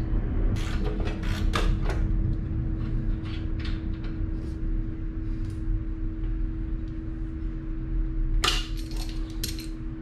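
Aircraft passing near a nearby airport: a steady low rumble with a constant hum. Short metal clinks of hand tools working on a motorcycle's license plate bracket come near the start and again near the end.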